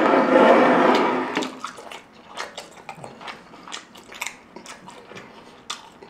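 A loud breathy blow through pursed lips lasting about a second and a half, then close-miked chewing of grilled jalapeño with soft wet mouth clicks.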